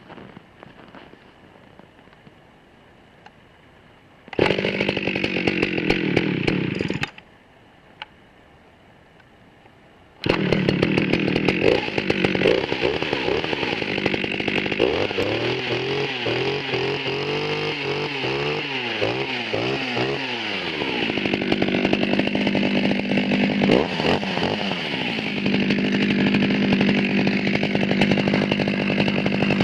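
Jonsered 49SP two-stroke chainsaw on a cold start. It fires about four seconds in, runs for under three seconds and dies, then starts again about ten seconds in. It is blipped up and down in revs several times before settling to a steady run.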